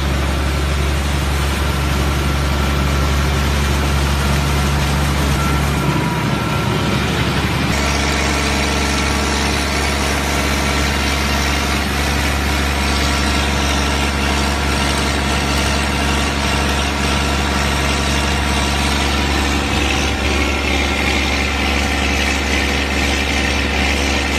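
Diesel engine of a trailer-mounted centrifugal pump set running steadily with a deep, even hum, while water pours out of the large discharge pipe in a rushing, splashing stream.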